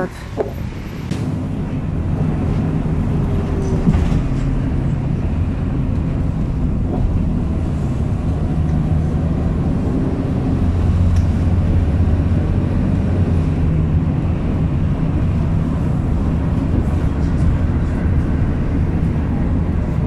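Steady low engine drone and road rumble heard from inside the cabin of a moving bus.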